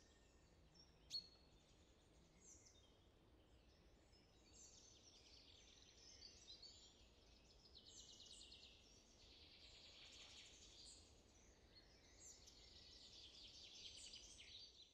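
Faint birdsong: birds chirping and trilling in high-pitched phrases, a little louder from about four seconds in, with a single click about a second in.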